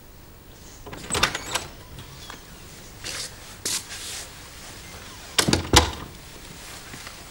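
A door being handled: latch clicks and knocks a little over a second in, a few more clicks around three to four seconds in, and a heavier double knock about five and a half seconds in, the loudest sound.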